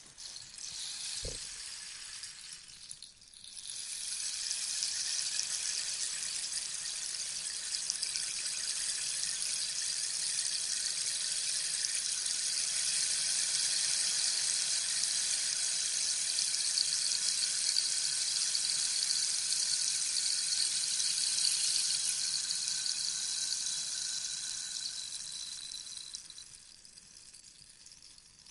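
Rainstick being tipped over, its pellets trickling down inside in a soft rain-like hiss. A short pour comes first, then one long cascade of about twenty seconds that swells, holds and slowly trickles away near the end. There is a soft low knock about a second in.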